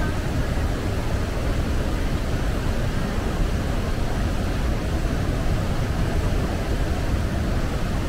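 Iguazú Falls: a steady, deep roar of muddy floodwater pouring over the brink of the falls.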